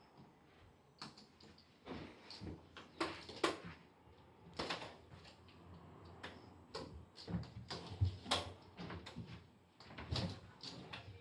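A string of irregular knocks, taps and rattles, starting about a second in, some louder than others.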